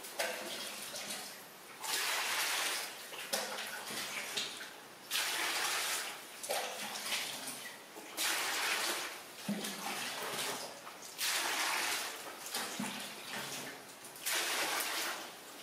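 Water splashing in a plastic basin as a baby monkey paddles and climbs about in it, in repeated short bursts every second or two.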